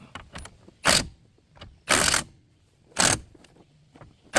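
Air impact wrench on a rusted brake fastener, run in four short bursts about a second apart.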